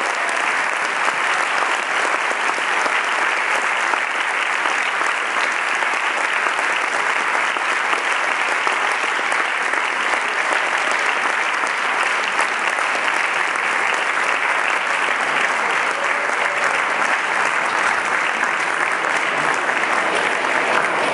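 Audience applauding steadily: a dense, even wash of clapping.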